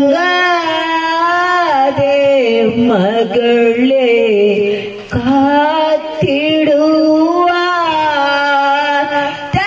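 Elderly woman singing into a handheld microphone: a single voice holding long notes that bend in pitch, with short breaks between phrases, about two and five seconds in.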